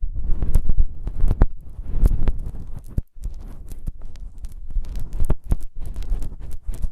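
Close-up ASMR ear massage on a microphone ear: muffled rubbing and scraping with a heavy low rumble and many sharp crackles and clicks. It stops briefly about three seconds in.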